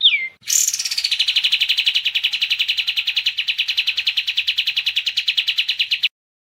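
A kapas tembak bulbul's song: one short downward-sliding whistle, then a long, fast, even trill that cuts off suddenly near the end.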